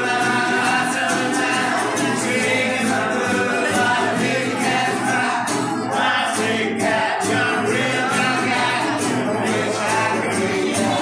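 Live ukulele band strumming in rhythm while the members sing together in a group.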